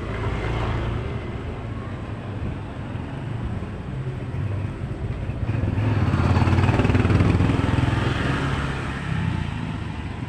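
Small motorcycle engines passing close by: one going past at the start, and a louder one that comes up from behind and goes by about seven seconds in, then fades.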